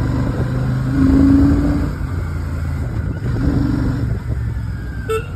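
Royal Enfield Shotgun 650's parallel-twin engine and exhaust running under way in city traffic, louder for a moment about a second in. A vehicle horn toots twice near the end.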